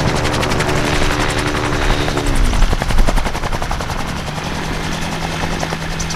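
Gyroplane rolling out after landing: its engine note drops as it is throttled back about two and a half seconds in, under a rhythmic chop from the spinning rotor blades, and the engine settles to a steady low idle near the end.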